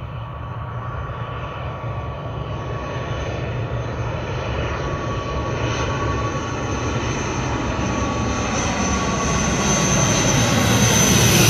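An ATR 72-500 turboprop airliner on approach to land: the noise of its twin turboprop engines and propellers, with a steady high whine over a low rumble. It grows steadily louder and brighter as the aircraft closes in toward overhead.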